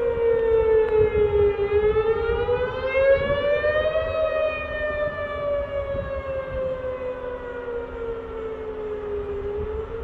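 Outdoor tornado warning siren wailing, sounding a tornado warning. Its pitch dips to a low point about one and a half seconds in, climbs to a peak about four seconds in, then slides slowly down until near the end, where it starts to rise again.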